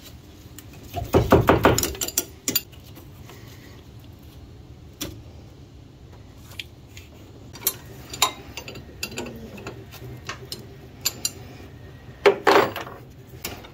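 Wrench clinking and clicking on a power steering hose fitting at the steering gear as it is loosened. There is a quick run of clicks about a second in, scattered single clicks, and another short run near the end.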